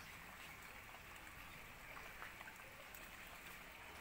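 Near silence: faint, steady outdoor background hiss with a few light ticks.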